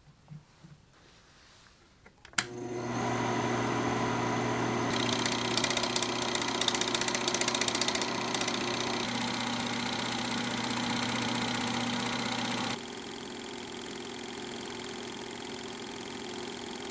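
Film projector switched on with a sharp click a couple of seconds in, then running: a steady motor hum with the rapid clatter of the film mechanism. The sound drops to a lower level about three-quarters of the way through and keeps running.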